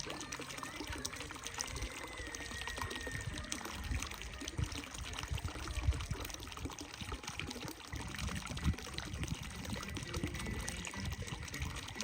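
Running water: a steady rushing and trickling, with scattered low thuds.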